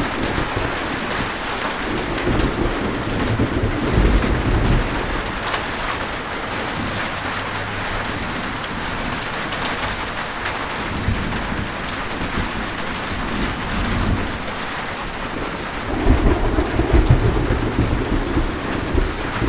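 Steady rain falling, with rolling thunder rumbling low underneath several times; the loudest thunder roll comes near the end.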